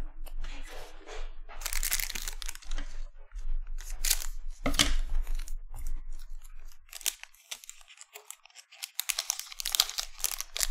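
Trading cards rustling and flicking against each other in the hands, then a foil card-pack wrapper crinkling and tearing open, with the densest crackling near the end.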